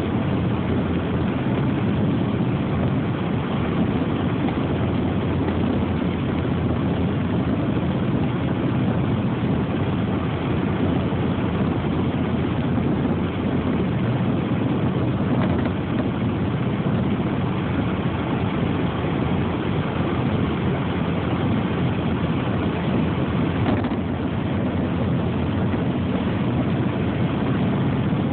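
Steady, even low rumbling noise with no distinct events.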